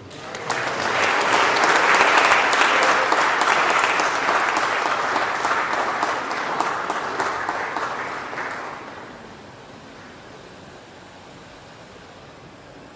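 A congregation applauding. The clapping starts right away, is loudest about two seconds in, and dies away after about eight seconds.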